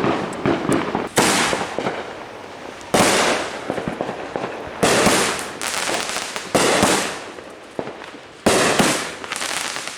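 Fireworks going off outdoors: about five loud bangs, one every couple of seconds, each dying away over a second or so, with a few smaller pops in the first second.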